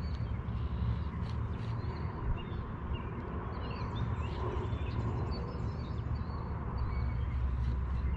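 Wild birds chirping and calling over a steady low rumble of wind on the microphone.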